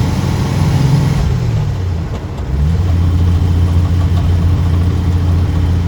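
1949 Rover P3's engine running while the car is driven: its note falls away about a second and a half in and dips briefly, then picks up again and holds steady.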